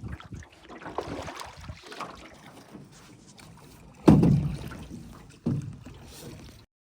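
Small rowboat or canoe on the water, with splashing and knocking, and two loud thumps about a second and a half apart near the end.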